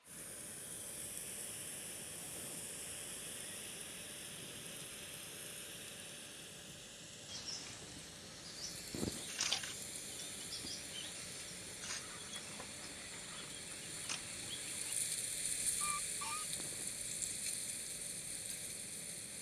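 Outdoor ambience: a steady hiss, with a few sharp clicks in the middle and two brief faint chirps near the end.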